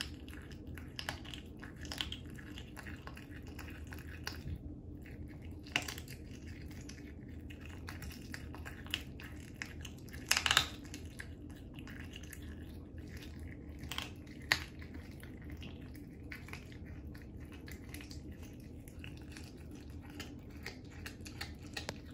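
Cat chewing a raw duck foot, with irregular wet crunches and clicks as it bites through the small bones and cartilage. A few crunches stand out louder, the loudest about ten seconds in.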